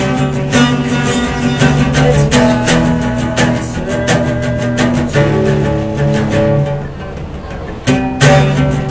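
Acoustic guitar strummed, its chords ringing between strokes. The playing softens about six seconds in, then a hard strum comes back near the end.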